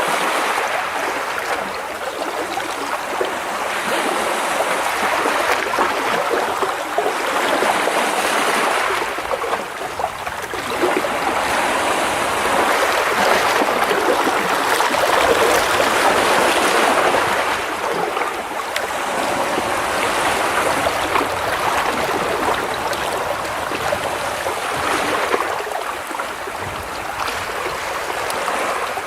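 Gentle sea waves splashing and washing against rocks close by. The rushing wash swells and eases every few seconds, strongest about halfway through.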